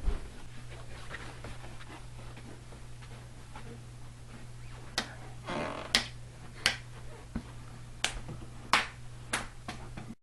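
A steady low hum, and from about halfway on a series of about eight sharp clicks, irregularly spaced, with a short rustle among them.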